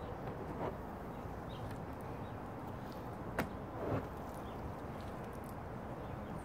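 Steady background hiss, broken by a few short knocks and clicks, the sharpest about three and a half seconds in.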